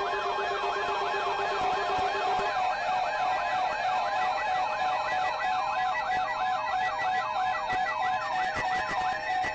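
Layered electronic alarm sirens: a fast yelp siren sweeping up and down about three times a second over steady and pulsing alarm tones. The sweeping stops near the end while the tones carry on.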